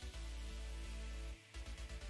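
Background music with a heavy bass line. It drops out briefly about a second and a half in, then returns with quick stuttering pulses.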